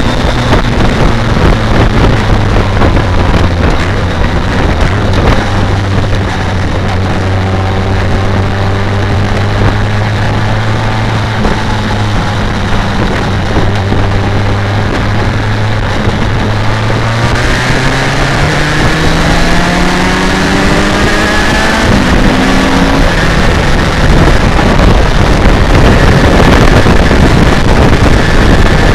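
BMW K1200R Sport's inline-four engine running steadily at low revs, then rising in pitch as the bike accelerates about two-thirds of the way through. Wind noise on the microphone grows loud near the end.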